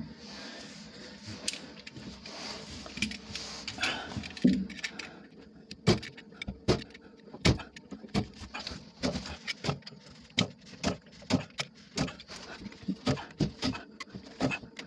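Utility knife blade scraping and nicking the socket of a PVC pipe fitting in short, sharp strokes. The strokes are irregular at first and come faster, about two a second, from the middle on.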